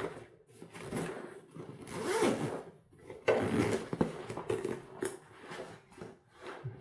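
Zipper of a fabric LEO fishing waist bag being pulled shut around its packed main compartment in a series of rasping pulls, the first few longer and louder, then shorter, fainter ones as it closes.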